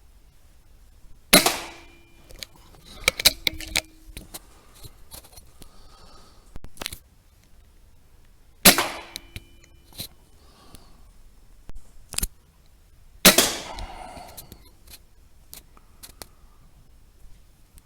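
Three sharp rifle shots, the first about a second and a half in, then about seven and five seconds apart, each with a short ringing tail. Lighter clicks and knocks come between the shots.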